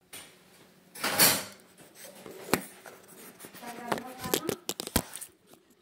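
Close handling noise of a moving phone: a loud rustle about a second in, then a string of sharp clicks and taps, with a brief bit of a person's voice in the middle.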